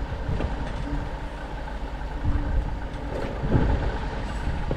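Homemade belt-driven tube rolling machine running with a steady low rumble as steel tube is pulled through its rollers on the final bending pass. There are scattered knocks and creaks from the tube in the rollers, and a louder spell a little past the middle.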